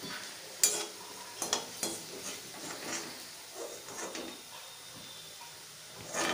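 Deep-fried cabbage Manchurian balls sizzling in hot oil in a metal kadai while a metal slotted spoon stirs and lifts them out, scraping and knocking against the pan. The knocks come irregularly, the loudest about two-thirds of a second in and just before the end.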